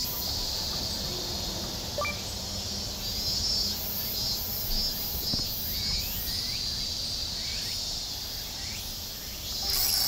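A chorus of summer insects shrilling, pulsing a few times a second for a while, then holding steady, with a few short bird chirps and a steady low rumble beneath.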